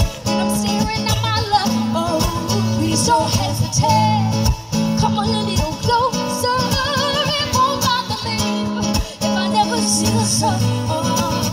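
Two female voices singing a pop song live, accompanied by two strummed guitars.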